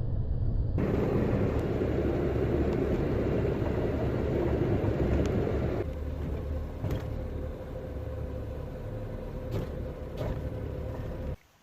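Steady low rumbling noise of a vehicle running; it eases off about six seconds in, leaving a faint steady hum with a few light clicks, and cuts off just before the end.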